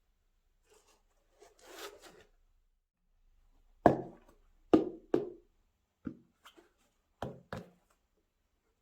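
Handling sounds from unboxing sneakers: a brief rustle, then about seven sharp knocks of objects set down or tapped on a hard surface, the first few loudest.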